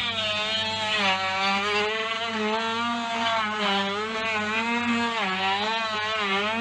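Electric power tool running continuously while cutting, its motor pitch sagging and recovering every second or two as it bites into the material, with a steady low hum beneath.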